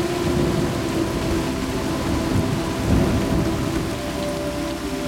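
Steady heavy rain with low rolling thunder rumbles, a louder swell about three seconds in, and a faint steady held tone underneath.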